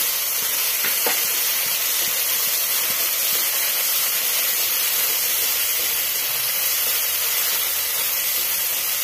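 Mustard paste and cumin seeds frying in hot oil in a steel kadhai: a steady sizzling hiss.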